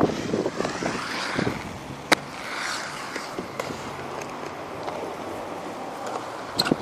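Skateboard wheels rolling on a concrete skatepark bowl, louder at first and easing off as the board moves away. A sharp clack comes about two seconds in, with another pair near the end.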